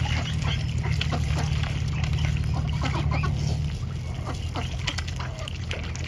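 Waterfowl calling: many short calls, several a second, over a steady low rumble that eases a little past halfway.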